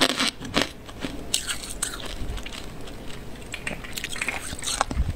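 Freezer frost being bitten and chewed: a run of sharp, crisp crunches with grainy crunching in between.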